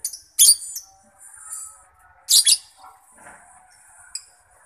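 Lovebird giving shrill chirps: two loud, short, high-pitched calls about two seconds apart, with fainter chatter between them.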